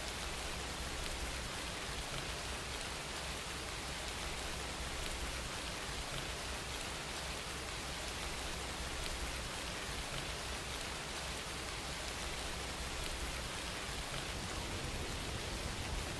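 Steady rain falling on a surface, an even hiss with no thunder.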